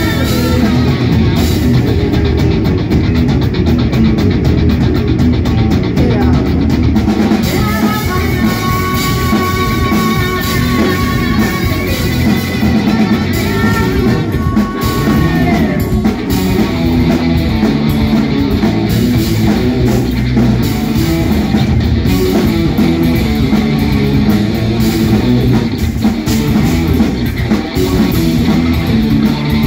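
Live rock band playing loud: distorted electric guitars, bass guitar and drum kit, with held lead notes about a third of the way in.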